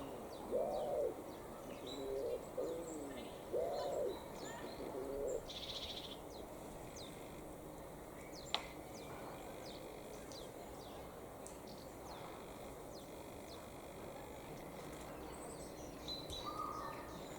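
A pigeon cooing in short repeated phrases for the first five seconds or so, over faint chirping of small songbirds. There is a single sharp click about eight seconds in.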